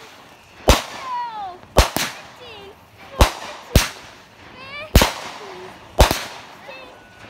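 Consumer aerial fireworks cake firing shot after shot: seven sharp bangs, about one a second, two of them close together near the two-second mark. Short sliding tones rise and fall between the bangs.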